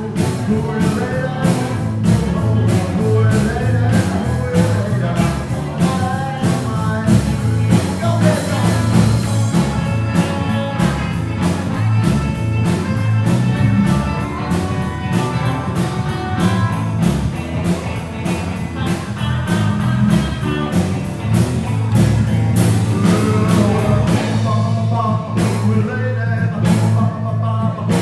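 Live rock and roll band playing through a PA: guitars over a drum kit keeping a steady beat, with a heavy bass line.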